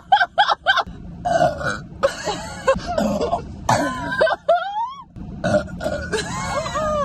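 Women burping over and over: four short burps in quick succession in the first second, then a string of longer belches.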